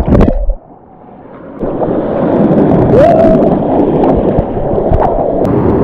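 Rushing, splashing water close to the microphone. About half a second in it drops suddenly to a quiet, dull murmur, then after about a second the noisy rush of water builds back up and runs on steadily.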